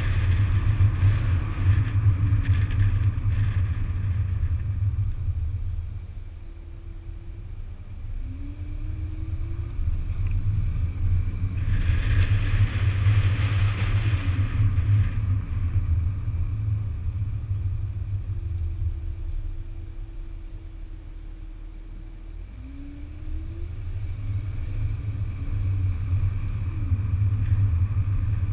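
Steady low rumble of road and wind noise from a 2008 Audi A5 3.2 driving at town speed, picked up by a camera mounted low on its flank. The noise eases twice as the car slows, and each time the V6 engine note rises as it pulls away again.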